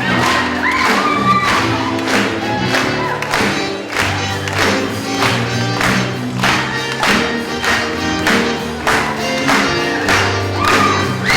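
Upbeat stage-musical finale music: a live band keeping a steady beat, with singing over it.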